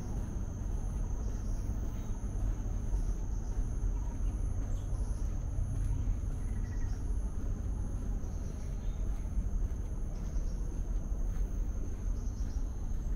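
Insects chirring steadily in the vegetation, a continuous high tone with a faint regular pulsing above it, over a constant low rumble.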